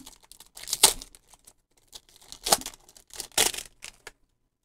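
Pokémon booster pack's foil wrapper being torn open and crinkled by hand, in a few short, sharp ripping bursts, the loudest about a second in.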